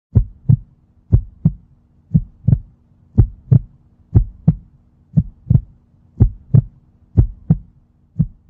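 Heartbeat sound effect: paired low thumps in a lub-dub rhythm, about one pair a second, over a faint steady hum.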